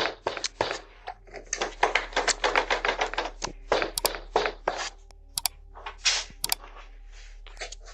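Rapid, irregular banging on a front door, several blows a second in clusters. It comes through a doorbell camera's microphone with a steady low electrical hum underneath.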